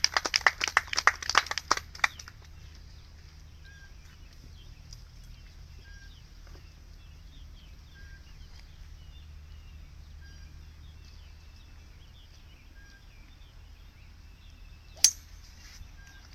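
Brief applause for the player on the tee dies away after about two seconds. A quiet stretch follows in which a bird chirps now and then. About fifteen seconds in comes a single sharp crack: a golf driver striking the ball off the tee.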